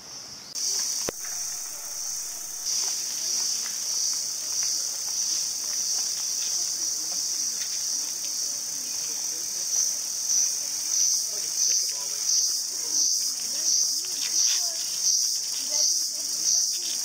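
Loud, shrill chorus of cicadas, a steady high drone that starts abruptly and, in the second half, swells and fades about twice a second.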